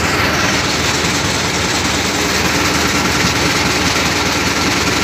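Heavy crane engine running steadily while it holds a suspended steel load, a constant, even drone.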